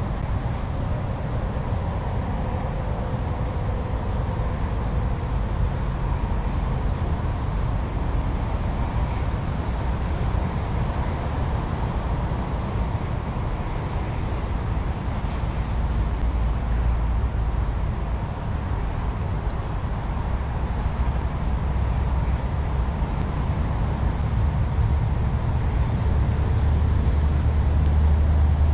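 Steady low rumble of highway traffic, unbroken and a little louder near the end.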